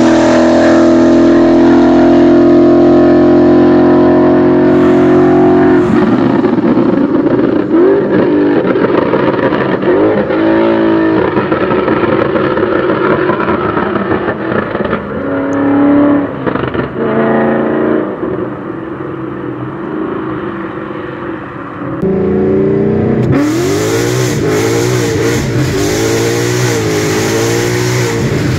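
Ford Mustang GT's Coyote 5.0 V8, burble-tuned and exhausting through long-tube headers, an X- and H-pipe with no mufflers or resonators, running loud. It holds a steady note at first, then the revs rise and fall. It is quieter for a few seconds past the middle, then comes back loud with repeated rev sweeps up and down.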